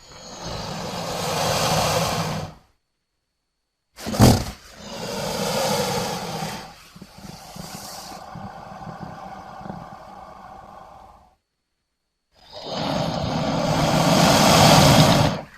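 Sound-effect roars and growls of an imagined crocodile-human hybrid monster, in three separate calls with silent gaps. The second begins with a sharp hit and trails off into a long, lower growl; the third is the loudest.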